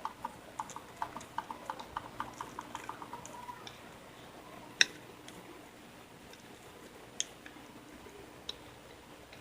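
Slime being pressed and worked by hand, giving a quick run of small clicking pops, about five a second, that fade out after three or four seconds. A few single, sharper pops follow.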